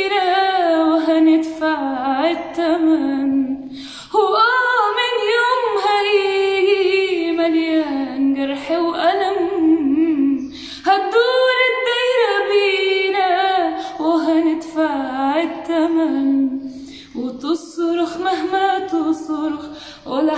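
A woman singing an Arabic song unaccompanied, in long phrases whose pitch slides and wavers, with short breaks for breath about 4, 11 and 17 seconds in.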